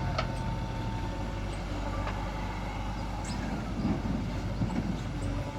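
Heavy diesel machinery running steadily, with a few sharp metallic knocks and a louder rumble about four seconds in.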